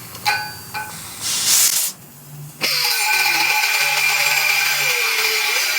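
Matco grinder with a 3M cut-off disc: a couple of short blips and a brief hissing burst, then a sudden start about two-thirds of the way in, after which it runs steadily, cutting away the wrench welded onto a seized truck-bed bolt.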